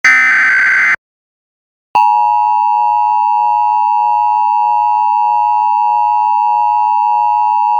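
Emergency Alert System tones: a one-second burst of SAME header data, then, after about a second of silence, the steady two-tone EAS attention signal (853 and 960 Hz) begins and holds unbroken.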